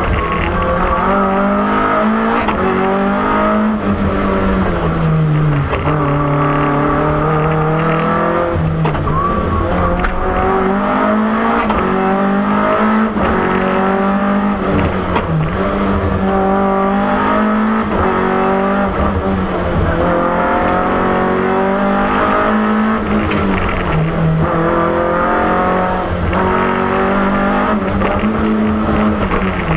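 BMW M3 E30 Group A rally car's S14 four-cylinder engine, heard from inside the cabin, revving hard. Its pitch climbs and drops again and again as the car shifts up and down through the gears.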